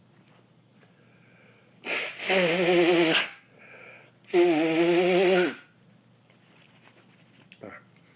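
A man sneezing loudly twice, about two seconds apart; each sneeze is long and voiced, with a wavering pitch, and a breath is drawn in between them.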